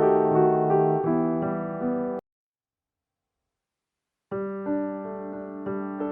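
Background piano music: sustained notes that stop suddenly about two seconds in, then two seconds of dead silence before the piano starts again.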